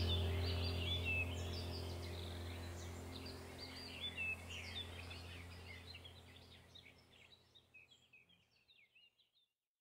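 Background track of birds chirping over a low steady drone, fading out gradually to silence about seven seconds in.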